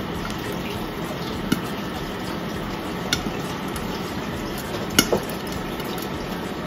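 A silicone spatula scooping cheese sauce and tapping against the edge of a bowl or pan: a few short sharp clicks, the loudest a double tap near the end, over a steady background hiss.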